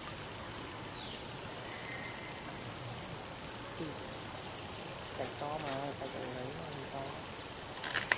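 Steady high-pitched chorus of insects, a continuous shrill drone, growing a little louder about a second and a half in.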